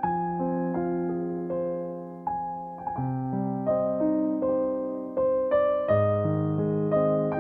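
Background music: a slow, gentle piano piece, single notes over held chords.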